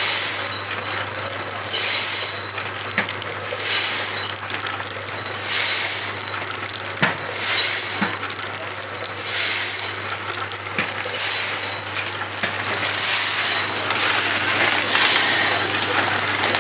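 Automatic tea packing machine running through its cycle: a hiss that swells about every one and a half seconds over a steady mechanical hum, with occasional sharp clicks.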